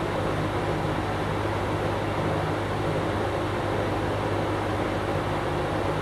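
Berns Air King 20-inch box fan running steadily: a constant rush of air from the spinning blades over a low, even motor hum.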